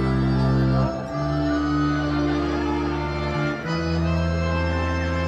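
Live rock band music: held, reedy keyboard chords over a low bass note, the chord changing about a second in and again near four seconds in.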